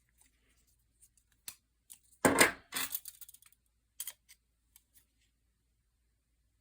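Metal pocket knives being handled: light clicks, then a sharp metallic clatter about two seconds in with a short rattle after it, and a few more scattered clicks.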